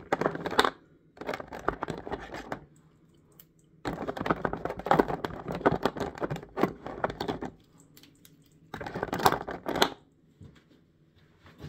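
Rustling and crackling handling noise close to the microphone, coming in four stretches with quiet gaps between them.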